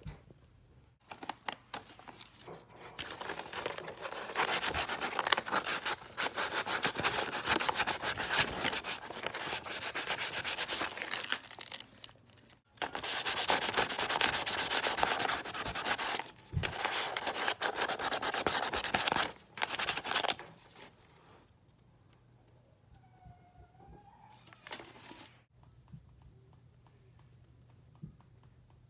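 Rapid back-and-forth rubbing by hand on wood, like hand sanding, in two long spells with a short pause about twelve seconds in. It stops about twenty seconds in, with one short burst a few seconds later.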